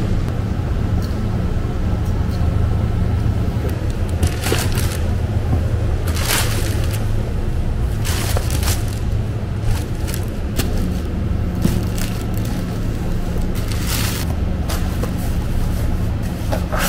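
Steady low machinery hum of a meat-processing plant, with several short rustles of a plastic box liner being handled.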